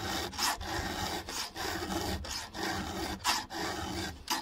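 An Oregon round chainsaw file rasping back and forth across a saw-chain cutter tooth, a series of short scraping strokes about two a second, sharpening the tooth by hand.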